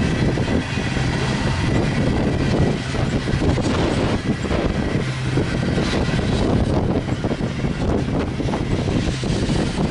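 A BNSF freight train rolling past with steady rail and wheel noise and a low hum, and wind buffeting the microphone.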